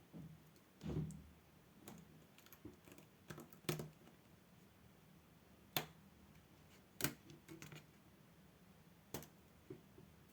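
Scattered sharp clicks and taps of hands working on a laptop's plastic casing, with a duller knock about a second in.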